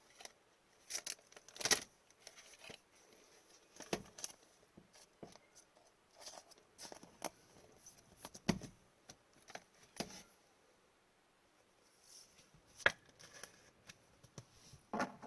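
Hockey trading cards being handled: scattered light clicks, slides and rustles of cards against each other, irregular and with a short quiet gap part-way through.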